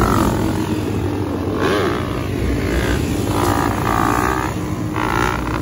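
Yamaha YZ250F dirt bike's single-cylinder four-stroke engine revving in several bursts over a steady engine drone as the rider holds a stand-up wheelie.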